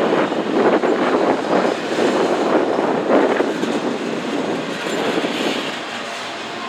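Norfolk Southern train cars rolling past, wheels rumbling and clattering over the rails in repeated surges, easing off slightly near the end. No horn sounds.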